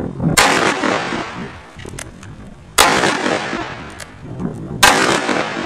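Ruger Super Blackhawk .44 Magnum revolver fired three times, about two seconds apart, each shot sharp with a long echoing tail.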